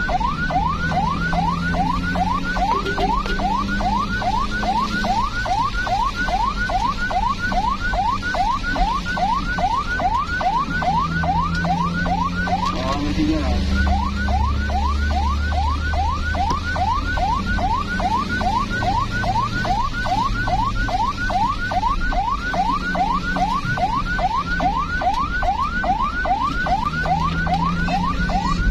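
Emergency vehicle's electronic siren in fast yelp mode: quick rising sweeps, about three a second, repeating steadily with a brief break about thirteen seconds in, over the low rumble of engines and traffic.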